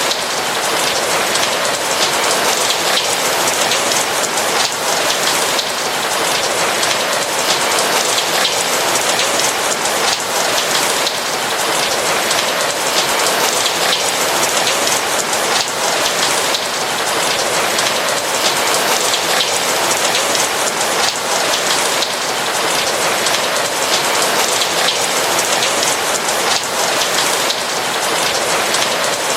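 Steady rain falling on a roof: an even hiss of many raindrops.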